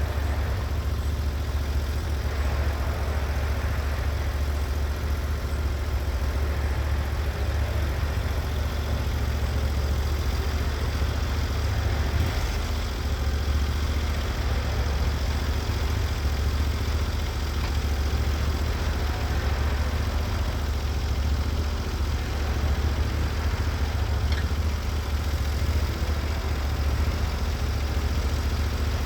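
Engine of a Norwood HD36v2 portable bandsaw mill running steadily at a constant speed, with a strong low hum.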